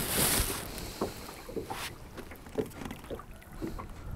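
Light knocks and clatter of gear being handled in a small boat, with a short rush of wind-like hiss at the start.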